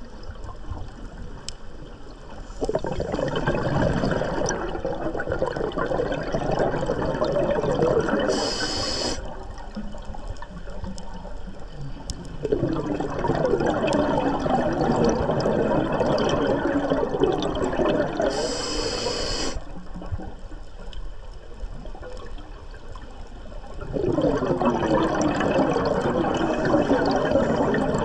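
A scuba diver breathing through a regulator underwater, at a slow pace of about one breath every ten seconds. Each breath has a short hiss as the diver inhales through the demand valve, then a long run of exhaust bubbles as the diver exhales. There are three cycles.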